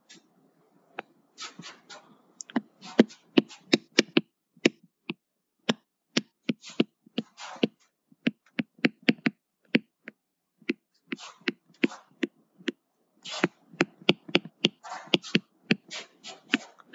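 Stylus tapping and scratching on a tablet's writing surface during handwriting: an irregular run of sharp clicks, with short scratchy strokes between them.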